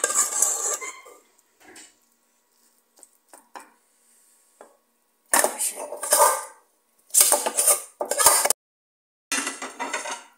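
A serving utensil scraping and clinking against a pot and plate as noodles are dished out, in several short bursts with quiet pauses between.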